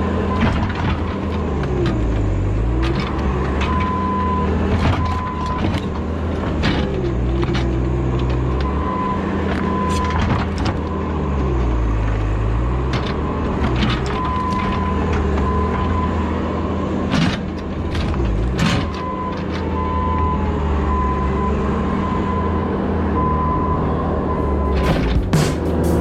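Small skid steer loader's engine running under load, its pitch dipping and recovering several times as it works. Short high beeps come and go, with scattered knocks.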